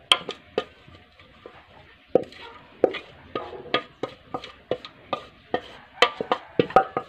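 Cooked mung beans being tipped and pushed out of an aluminium pot into a non-stick frying pan: irregular clinks and knocks of metal on metal as the pot's rim works against the pan, with soft beans dropping in. The knocks come thickest and loudest near the end.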